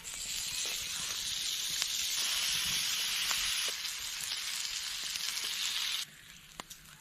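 Thick slab bacon sizzling in a frying pan, a steady hiss with a few small pops. It cuts off suddenly about six seconds in.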